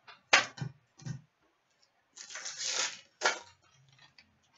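Trading cards and a card pack being handled: three sharp taps and clicks, then a rustling tear of the pack wrapper lasting about a second, and one more sharp tap.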